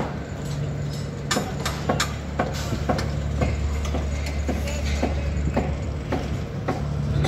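Footsteps on a hard floor, about two a second, over a steady low hum.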